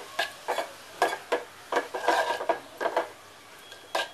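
Steel spoon stirring chopped spinach in a metal pot, clinking and scraping against the pot's sides in quick repeated strokes with a light metallic ring. A denser run of scraping comes in the middle, and then the strokes stop except for one clink near the end.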